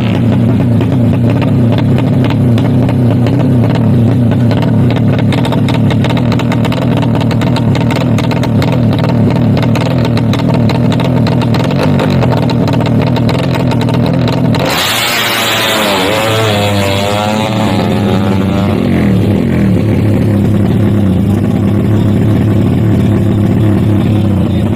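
A Yamaha Vixion drag bike's single-cylinder four-stroke engine running loud and steady on the start line. About fifteen seconds in it changes suddenly as the bike launches, the revs rising and falling in quick sweeps through the gears.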